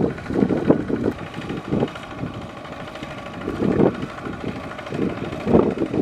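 Kubota ZT155 single-cylinder diesel engine of a two-wheel walking tractor running steadily while ploughing a flooded rice paddy. Gusts of wind buffet the microphone several times, loudest near the start and near the end.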